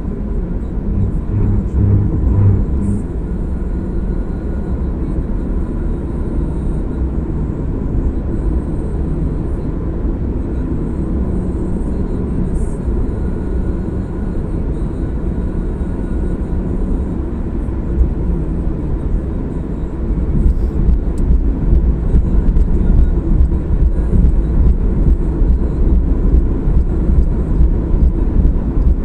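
Tyre and engine noise of a car cruising on a highway, heard from inside the cabin: a steady low drone that gets louder about two-thirds of the way through.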